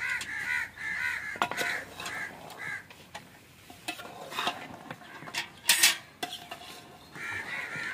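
A metal slotted ladle stirring meat in a metal cooking pot, clinking and scraping against the pot, with a sharp clank just before six seconds in. Crows caw repeatedly in the background during the first few seconds and again near the end.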